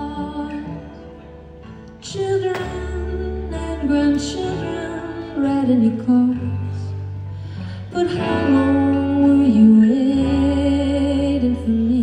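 Live acoustic guitar and violin playing a slow song, the melody in long held notes that slide between pitches.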